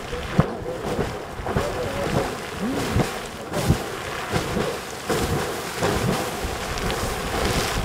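Sawmill Geyser erupting: a steady rush of water splashing and spraying from its boiling pool, with irregular low thumps as the water surges.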